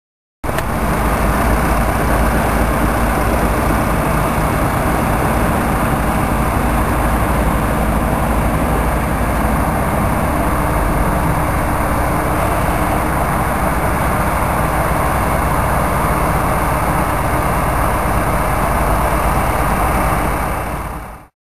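Heavy construction machinery engine running steadily, starting abruptly about half a second in and fading out near the end.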